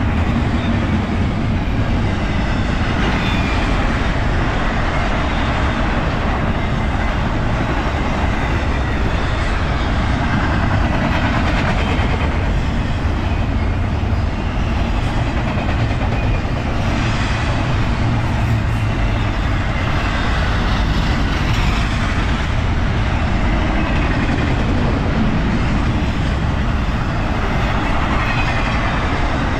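BNSF freight train rolling by: a steady, loud rumble and hiss of wheels on rail that holds without a break.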